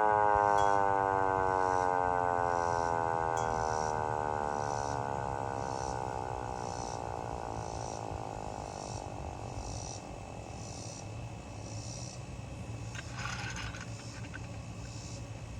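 Vixen Horns VXS-2000MTP hand-crank siren winding down after the cranking stops. Its wail slides steadily lower in pitch and fades away over about ten seconds. A short scraping noise follows about thirteen seconds in.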